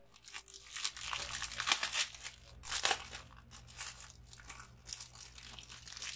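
Thin clear plastic bag crinkling and crackling in irregular bursts as it is handled around a clear phone case, loudest in the first three seconds.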